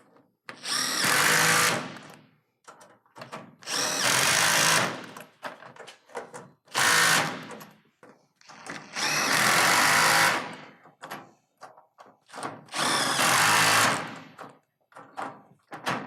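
Cordless power drill/driver running in short runs of one to two seconds, about five times, tightening the set screws of S-5! clamps onto a metal roof's standing seams. Small clicks and knocks come between the runs.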